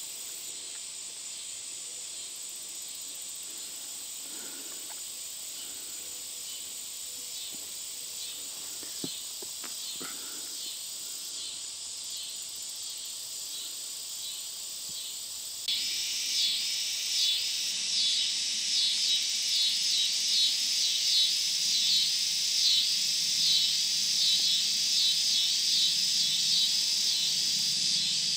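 Summer insect chorus: a steady high buzz, then about halfway through a louder high insect call starts suddenly and swells in rhythmic pulses.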